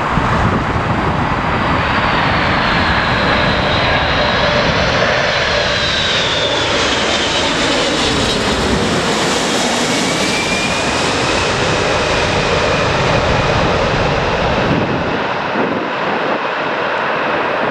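Boeing 747 jet engines passing close overhead on landing approach, a loud rush with a high whine that glides down in pitch as the aircraft goes by. The rush peaks about halfway through, and wind rumbles on the microphone until near the end.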